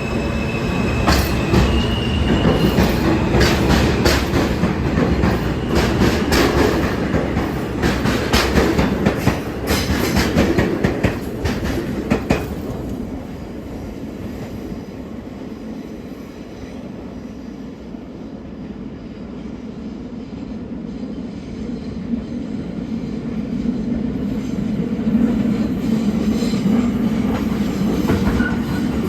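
New York City Subway R160 train running through the station with wheels clattering over rail joints and brief wheel squeal. The clatter gives way to a quieter steady rumble about halfway through, which grows louder again near the end.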